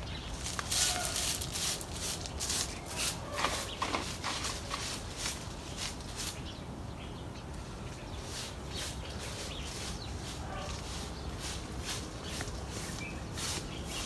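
Village morning outdoors: birds chirping in quick runs of short, sharp chirps about three a second, in two spells, with farm fowl calling now and then.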